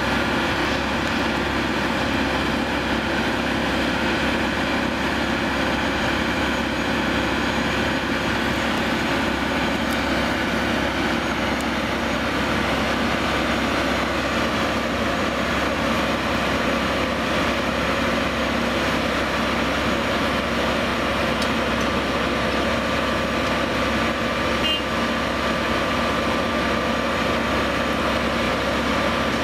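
Plasser & Theurer APT 1500 RA rail-welding machine's diesel power unit running steadily: a constant mechanical hum with several steady whining tones.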